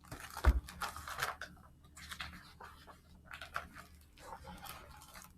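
Paper rustling and light handling noises as a picture book's page is turned, with one soft thump about half a second in.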